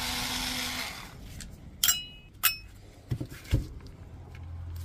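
Plastic case of a Bosch 18V battery pack being worked open by hand: a short rasping noise at the start, then two sharp clicks with a brief ringing and a couple of duller knocks as the tight-fitting parts come loose.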